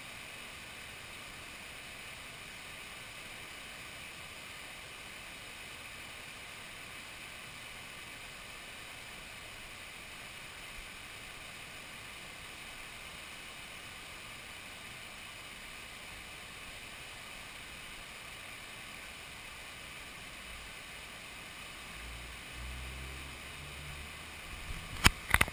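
Steady rush of river water pouring over a weir. A low rumble comes in near the end, followed by a few sharp knocks.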